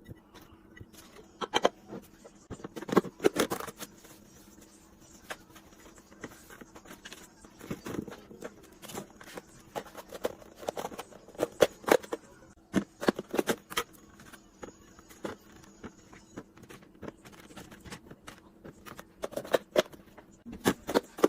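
Irregular clicks, taps and clatters of items being handled and set down, as in restocking a fridge with containers and packaging, over a faint steady hum.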